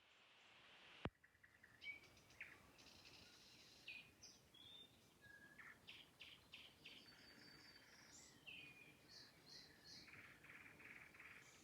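Nightingale singing faintly: varied phrases of whistles, trills and rapid runs of repeated notes. A single sharp click about a second in.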